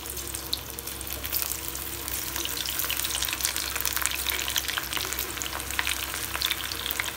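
Hot oil in a kadai sizzling and crackling as handfuls of gram-flour-coated ivy gourd (tindora) pakoda mixture are dropped in to deep-fry. The crackle grows denser after about a second as more pieces go in.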